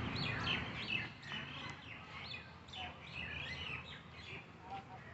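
Several birds chirping, with many short, quick calls overlapping, busiest in the first three seconds and thinning out after, over a steady low background rumble.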